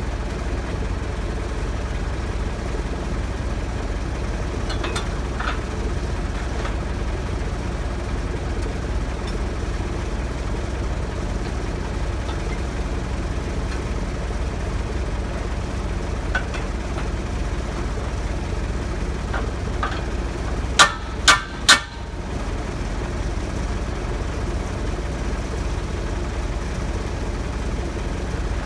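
A large engine idling steadily, with three sharp knocks in quick succession about two-thirds of the way through.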